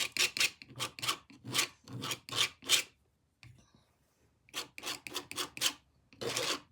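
A painting tool rubbing paint across a jigsaw puzzle surface in quick rasping strokes, about three to four a second. It stops briefly about three seconds in, then starts again.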